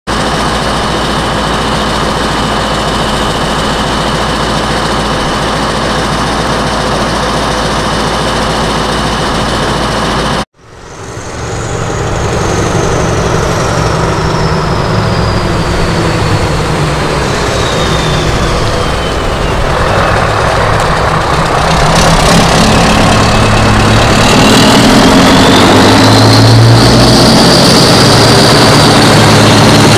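Scania R 500 truck's V8 diesel, with an open straight-pipe exhaust, idling steadily. After a sudden cut about ten seconds in, the engine runs and builds as the truck pulls away with a loaded low-loader. A high whistle falls in pitch, then rises again near the end.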